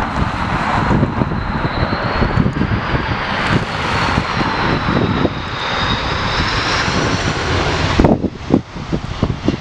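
Airbus A330-300 jet airliner on short final passing close by, its twin engines making a steady roar with a high fan whine that wavers in pitch. Strong wind buffets the microphone throughout and takes over near the end as the engine roar falls away.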